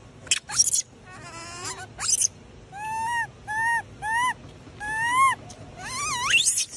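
Baby macaque crying: a few short shrill squeaks, then a run of whining calls about half a second apart, each rising and falling in pitch, and a last call that sweeps upward near the end.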